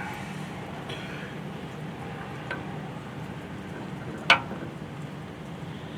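Hand tools working on a hydraulic cylinder's gland: a faint metal tick, then one sharp metal clink a little past four seconds in, over a steady low hum.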